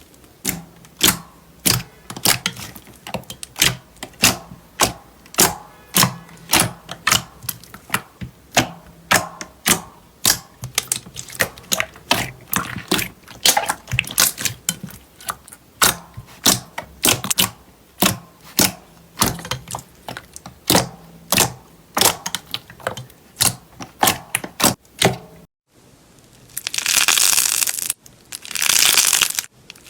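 Slime being pressed and poked, making a steady run of sharp clicking pops, about two a second. After a short break near the end come two longer, crackling crunches.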